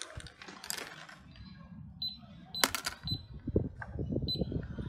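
Small plastic toy grocery items being handled and knocking against a small plastic shopping basket: a few sharp clicks and light rattles, with softer knocks and rustling near the end.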